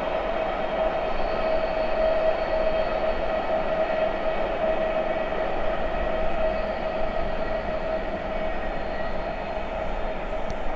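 Wagons of a long iron-ore freight train rolling steadily on the track, with a steady high-pitched tone sounding over the rolling noise.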